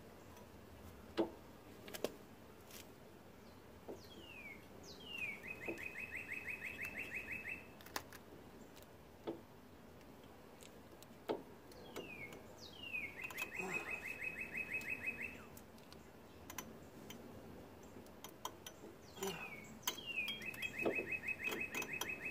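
A songbird sings three times, each phrase two quick falling notes followed by a fast, even trill of about two seconds. Scattered sharp clicks and taps come from hand work on the brake caliper and pads.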